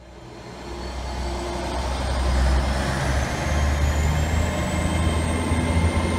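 Train sound effect: a deep rumble swelling up from silence, with a thin whine that climbs slowly in pitch.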